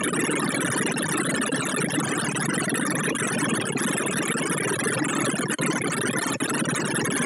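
ArrayV sorting visualizer's synthesized tones, one short blip for each array access of Safe Ass Sort on 512 items, running so fast that they blur into a dense, steady buzzing chatter. It drops out briefly twice, about five and a half and six and a half seconds in.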